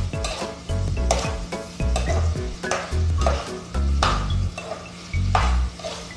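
A spatula stirring and scraping garlic, ginger and finger chillies sizzling in hot oil in a stainless steel wok, with a stroke about once a second. Background music with a bass line plays underneath.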